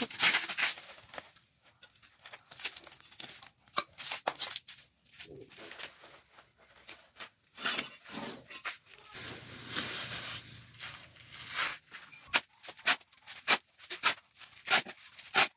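Shovel digging and scraping through loose soil and across a concrete floor: irregular short scrapes and gritty crackles, coming faster in a run of sharp strokes near the end.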